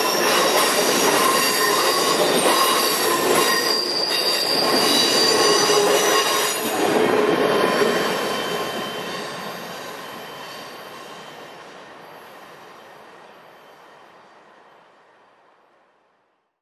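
Steel wheels of the Ringling Bros. circus train's passenger cars rolling over the rails with a steady high-pitched wheel squeal as the last cars pass. The sound then dies away steadily over the second half until it is gone.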